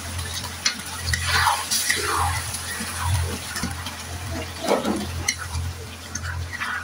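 Chicken pieces simmering and lightly sizzling in a butter and Worcestershire sauce in a non-stick frying pan, with a few short swishes of liquid being added or stirred. A steady low hum runs underneath.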